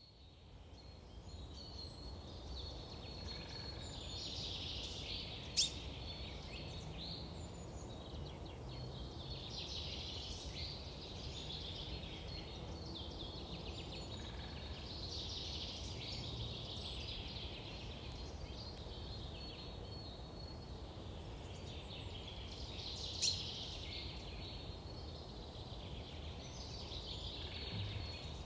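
Woodland ambience: birds singing in repeated short phrases over a steady low background noise. Two sharp clicks sound some seventeen seconds apart.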